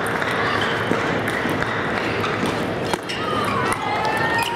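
Table tennis played with sandpaper paddles: the ball gives sharp, irregular clicks off the paddles and the table. Near the end there is a short high squeak.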